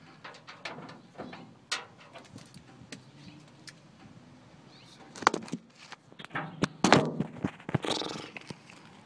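Handling noise of a phone being picked up and moved: scattered light clicks, then a cluster of sharp knocks and rustling a little after halfway, with the two loudest knocks about a second and a half apart.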